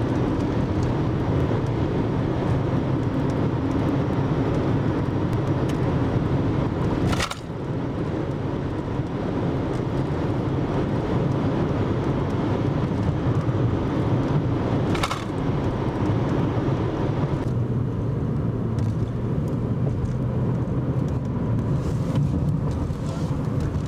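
Car driving, heard from inside the cabin: steady low road and engine noise, with two short clicks about seven and fifteen seconds in.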